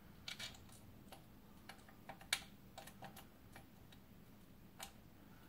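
Faint, irregular light clicks and taps, about a dozen, the loudest a little past two seconds in, as hands fit parts on an LS V8's intake manifold.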